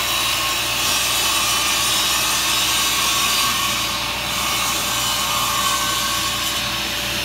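Vertical panel saw's circular blade cutting down through a thin sheet of composite panel board, a steady, loud saw noise as the saw head is drawn along the cut.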